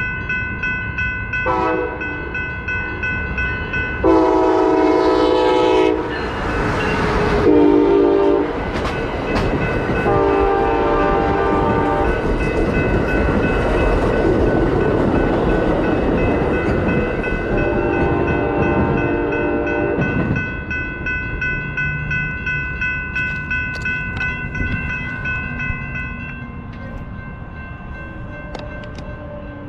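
Locomotive air horn sounding a series of chord blasts, short and long, the loudest about four seconds in and the last ending about twenty seconds in, over the rumble and wheel clatter of a passing train.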